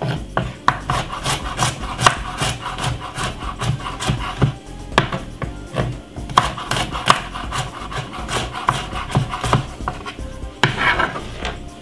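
Garlic cloves being worked off-camera against a hard surface with repeated rasping strokes, about three a second, pausing briefly a few times.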